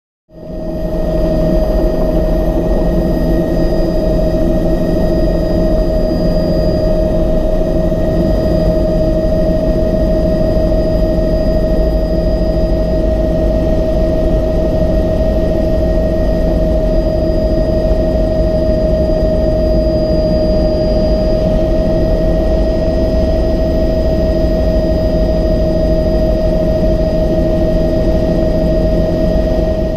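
Helicopter cabin noise in flight, heard from inside the cabin: a steady whine over a dense, loud low drone from the engine and rotor that does not change.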